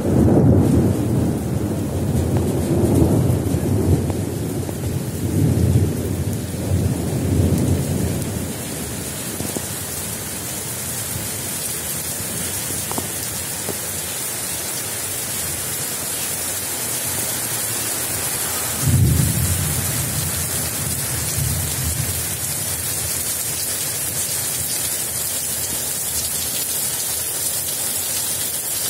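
Thunder rumbling over the steady hiss of heavy rain from an approaching thunderstorm. One long roll fills the first several seconds and a shorter rumble comes about two-thirds of the way through, while the rain hiss grows stronger.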